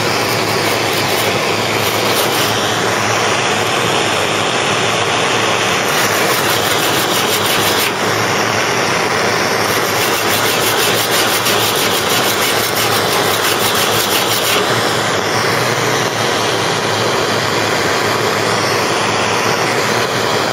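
Gas blowtorch flame burning steadily with an even, unbroken hiss, played on a car body seam to melt out the lead filler.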